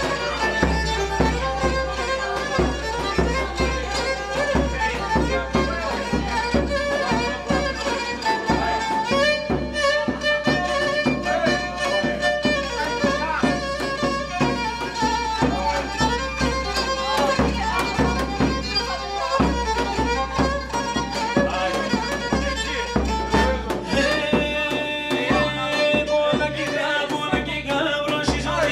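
Pontic lyra (kemenche) bowed in a fast run of short notes, with a low regular thumping underneath.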